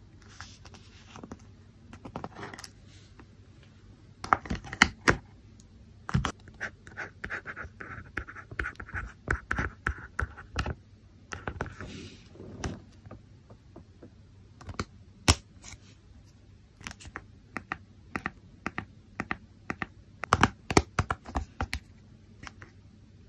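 Handling of a plastic LCD electronic memo pad in a notebook-style cover: scattered clicks and taps of the hard plastic case. In the middle come a few seconds of scratching as a stylus writes on the tablet's screen.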